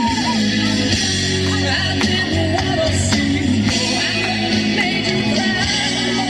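A loud song with singing over steady backing music.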